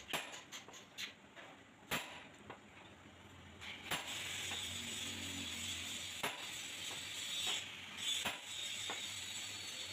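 Scattered sharp metallic clicks and taps as metal bushes are handled and fitted into the bore of a tractor front axle beam. A steady hiss comes in about four seconds in.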